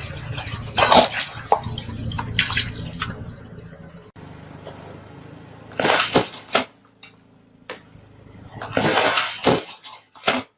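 Objects being crushed under a car tyre: several separate bursts of crunching and squishing, over a car engine's low hum that drops away about four seconds in.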